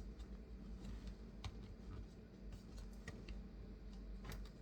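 Faint, scattered light clicks and taps from small parts being handled in the opened MacBook Air, over a low steady hum.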